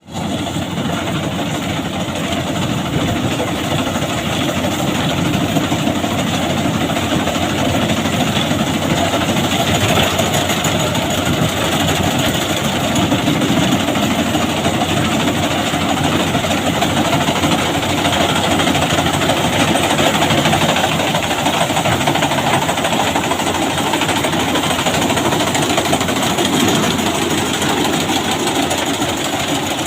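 BIMO rice combine harvester running steadily, its engine and machinery making a loud, continuous mechanical din.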